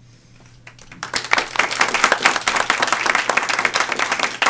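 Audience applauding with many hands clapping, starting about a second in and going on steadily.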